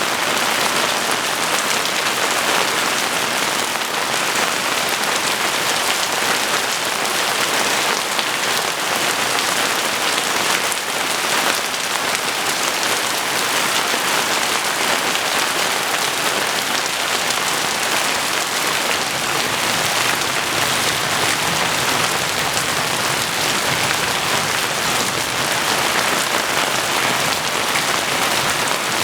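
Heavy rain pouring steadily, a dense even hiss of drops with no thunder heard.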